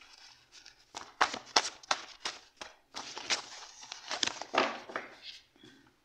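Paper index cards being handled and spread on a table: an irregular run of sharp paper flicks, rustles and light taps of card against card.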